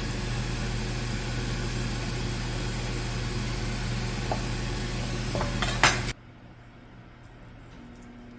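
Steady kitchen noise, a hiss with a low hum, with a few sharp clinks of kitchenware about five and a half to six seconds in. Then it cuts off suddenly to a much quieter background.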